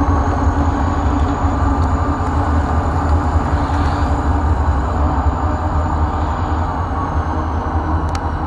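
Several coupled diesel-electric freight locomotives hauling coal hoppers, their engines running in a steady deep rumble, with a faint high whine above it.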